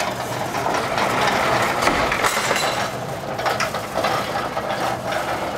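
Casters of a heavy wheeled crate rolling and rattling over asphalt as it is pushed along, with a steady run of small knocks and clatters from the load on top.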